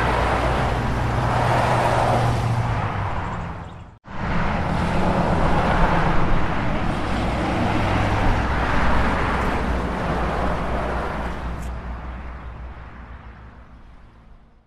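Road traffic: cars passing one after another over a steady low engine hum. The sound cuts out abruptly for a moment about four seconds in, then resumes and fades away near the end.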